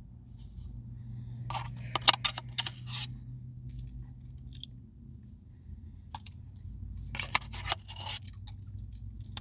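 Someone eating a Choco Brownie Blizzard: scraping, clicking and chewing come in two flurries, about a second and a half in and again about seven seconds in, over a steady low hum.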